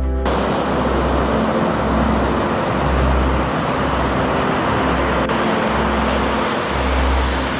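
Ocean surf breaking and foaming water washing up the sand: a steady rush that cuts in suddenly at the start, with a low rumble pulsing underneath.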